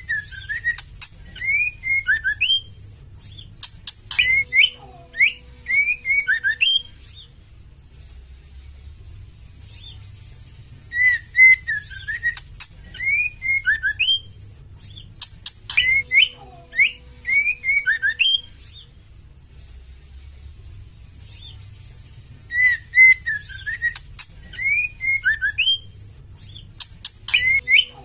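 Female white-rumped shama calling: phrases of sliding whistled notes mixed with rapid chirps and clicks. Each phrase lasts about seven seconds and the same pattern comes round again about every twelve seconds, a looped recording.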